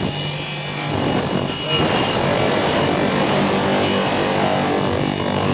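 OZ Machine Meteor I420 single-head aluminium cutting saw, 420 mm blade on a 3 kW motor, sawing through an aluminium profile: a loud, steady cutting screech with high ringing tones.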